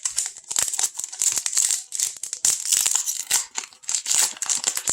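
Plastic trading-card pack wrapper being crinkled and torn open by hand, a dense irregular crackling in quick handfuls.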